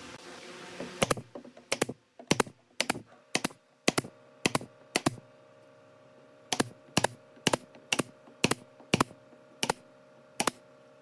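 Pneumatic nail gun firing nails into pine strips, a rapid series of sharp snapping shots, about two a second, with a short pause midway.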